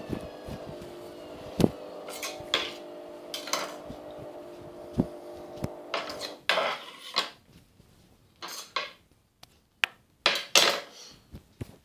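Kitchen knife striking and scraping on a granite chopping board: sharp clicks and knocks mixed with longer scraping strokes. A steady hum from a running washing machine lies under the first half and stops about halfway through, leaving sparser strikes.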